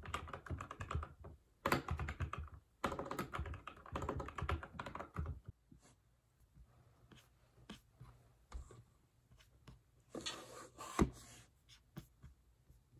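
Typing on a computer keyboard: a fast, dense clatter of keystrokes for about five seconds, then sparser keystrokes with a short quick burst and one louder knock near the end.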